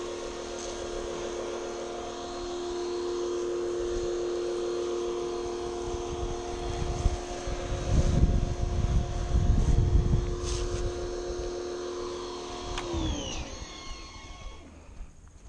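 PowerWorks 2000 PSI electric pressure washer's motor and pump running with a steady whine while it sprays soap, with a rushing noise swelling in the middle. About thirteen seconds in the whine drops in pitch and fades as the motor winds down and stops.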